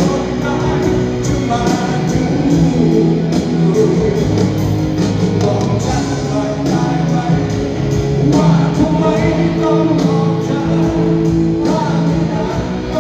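Live performance of a Thai rock ballad: a male singer sings over electric guitar and a backing orchestra, with long held chords under the vocal line.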